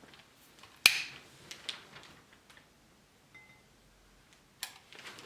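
A sharp click about a second in that rings briefly, a few faint taps after it, and another click near the end.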